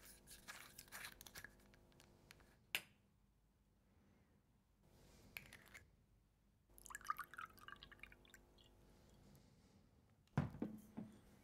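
Jack Daniel's whiskey poured from its glass bottle into a glass tumbler, glugging and splashing for about a second and a half in the middle. Around it, the bottle is handled with light clinks, a sharp click early, and a heavier knock near the end.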